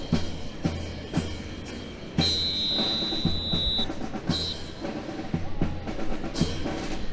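Drum-led music with a steady beat, bass drum strokes about twice a second over snare, accompanying a rifle drill. A high steady tone sounds for about a second and a half a little after two seconds in, then briefly again.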